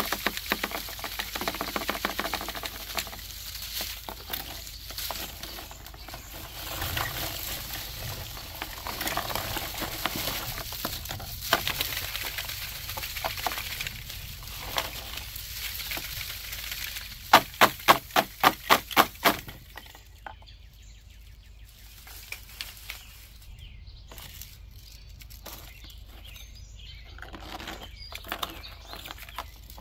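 Dried poppy seed heads and brittle stalks rattling and crackling as the bundle is shaken upside down over a plastic tub, seeds spilling out. About two-thirds through comes a quick run of about eight sharp taps, the loudest sounds, after which the rustling is quieter with scattered clicks.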